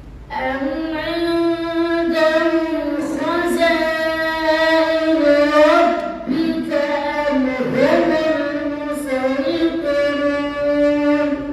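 A young boy's voice reciting the Quran in a melodic chant, long held notes rising and falling. It starts about half a second in, breaks briefly about six seconds in, and stops just at the end.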